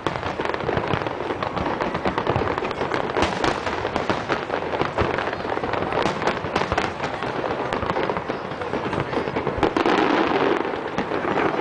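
Fireworks display: aerial shells bursting one after another, many sharp bangs over continuous crackling.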